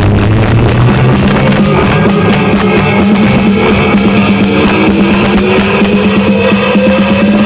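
Loud drum-led music played through a large sound system being tested, with tones sliding upward in pitch over the second half.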